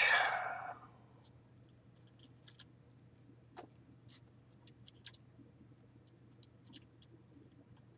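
Faint, scattered small clicks of a wire lead being handled and worked into the jaws of a PCB screw terminal block, after a short rustle at the start. A low steady hum runs underneath.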